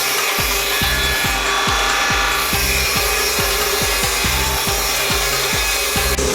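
A woodworking power tool cutting or working a wooden board, giving a steady, loud rasping noise.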